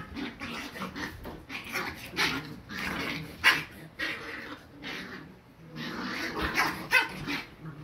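Corgi puppies play-fighting, giving a busy string of short yaps and growls, loudest about three and a half seconds in and again near the end.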